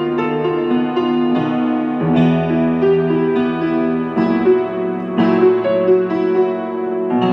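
Upright piano being played: a moving line of notes over sustained lower chords that change every second or two.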